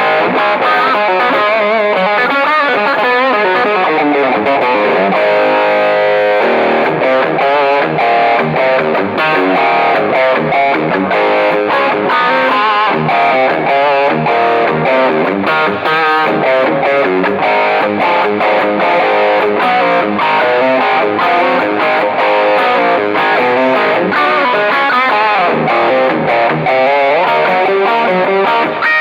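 Westcreek Helios electric guitar played through a high-gain distortion pedal: a run of riffs and lead lines with a chord held for about a second near the six-second mark.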